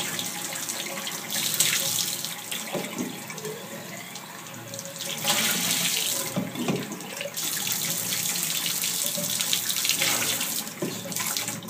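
Bathtub faucet running, the water splashing into and over a plastic DI filter cartridge housing that is being rinsed and shaken under the stream to flush out spent deionisation resin. The splashing gets louder about five seconds in, with a few light knocks of the plastic housing.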